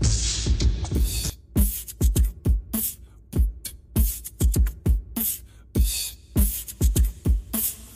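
Background music with a drum beat: low kick-drum thumps and crisp hi-hat hits.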